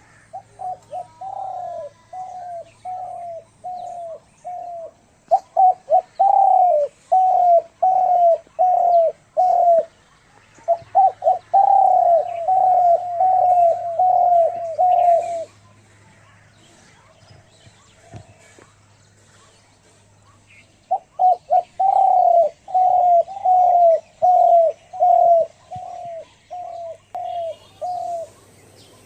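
A bird calling a long series of short, evenly repeated slurred notes, about two a second, in several bouts, with a pause of a few seconds before the last bout.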